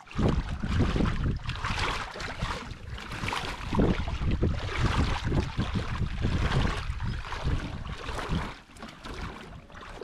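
Packraft on a shallow river: rushing, splashing water with heavy low rumble on the microphone. It starts abruptly and eases off near the end.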